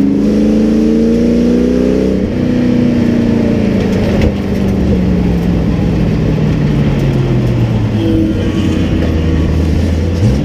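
Race truck engine heard from inside the cab, running hard and climbing in pitch for about two seconds, then dropping and winding down steadily as the truck slows. A short quick rev comes near the end.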